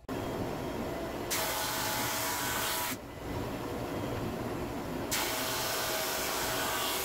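Laguna SuperMax 16-32 drum sander running, feeding teak strips on its conveyor to surface them for a glue-up. A steady machine noise, with two louder, hissier stretches of sandpaper on wood as the pieces pass under the drum: about a second in and again about five seconds in.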